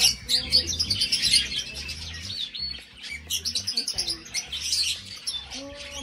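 Small parrots chirping in quick, dense, high chatter. It is loudest in the first second and a half and thins out after about two and a half seconds.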